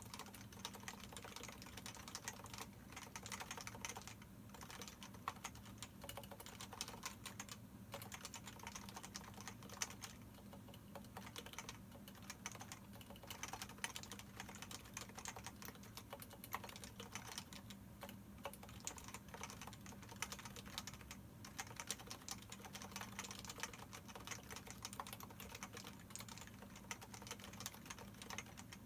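Continuous fast typing on a Leopold FC660C keyboard with 45 g Topre electrostatic capacitive switches and PBT dye-sublimated keycaps, the sliders unlubricated and the stabilizers lubed with Krytox 205. Keystrokes come in quick runs with a few brief pauses.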